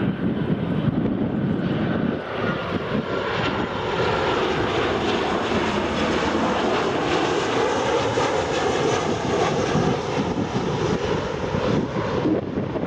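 Ryanair Boeing 737-800's CFM56-7B jet engines on landing approach: a steady rumble and hiss with a faint whining tone that drops slowly in pitch as the jet goes by.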